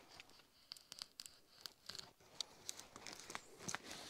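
Knife slitting birch bark lengthwise along a felled log: a quiet, irregular run of small crackles and tearing clicks as the blade cuts through the bark.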